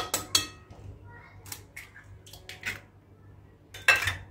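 Eggs being cracked on the rim of a glass mixing bowl: a quick run of sharp taps of shell on glass, then lighter clicks of shell being pulled apart, and a louder knock near the end.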